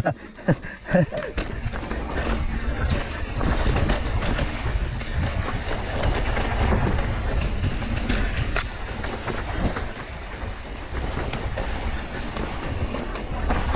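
Mountain bike rolling fast down a dirt trail, heard close up from the bike rider: a continuous rumble of tyres on dirt with the frame and components rattling over roots and stones. There are a few sharp knocks in the first second.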